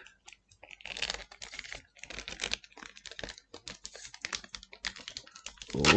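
Hands opening and handling a trading-card booster box: a quick, irregular run of small clicks, scratches and rustles from cardboard and packaging.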